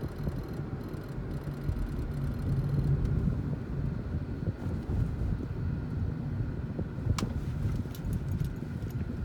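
Steady low rumble of a 10th-generation Honda Civic heard from inside the car, with a few sharp clicks about seven to eight seconds in.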